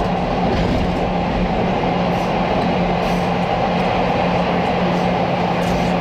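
CTA rapid-transit train running steadily through a subway tunnel: an even rumble of wheels on rail with a constant low hum, heard from inside the front car.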